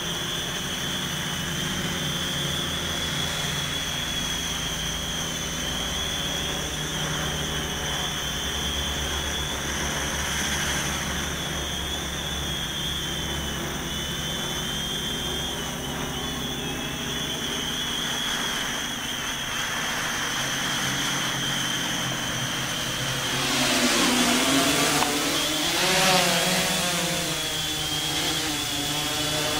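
Y6 hexacopter's six electric motors and propellers, mounted in coaxial pairs, buzzing in flight with a steady high whine. From about 23 seconds in it grows louder, its pitch rising and falling as the craft comes close and the motors change speed.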